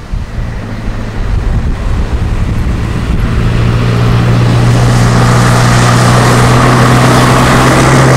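The J.W. Ballast's engine clattering loudly as the boat passes, a steady low engine note that grows louder from about three seconds in. Wind noise on the microphone at the start.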